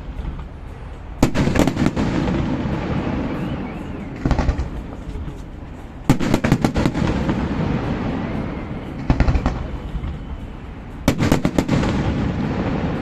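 Fireworks display going off: five volleys of sharp bangs, about every two to three seconds, each followed by a rumble that slowly dies away.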